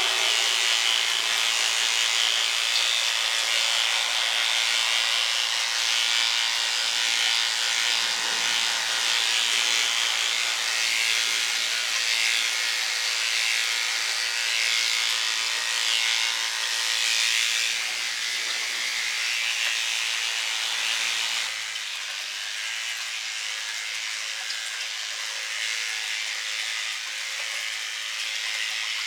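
Electric hair clippers buzzing steadily as they cut through a dog's hair, dropping a little in loudness about two-thirds of the way through.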